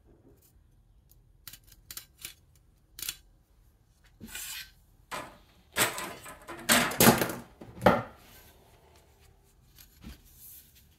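A few light clicks, then a cluster of louder metallic clatters and knocks about halfway through, with a last light tap near the end: an aluminum channel and a steel square being handled and set down on a wooden workbench.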